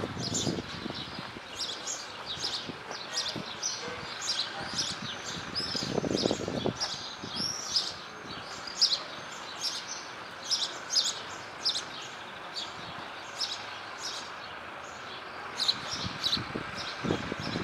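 Small songbirds chirping and twittering, with many quick high calls scattered throughout over a steady background hum of the town. A short low rumble about six seconds in.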